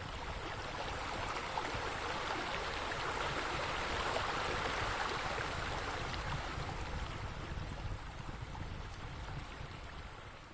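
Steady rushing noise like running water, swelling to its loudest about four seconds in and fading out at the end.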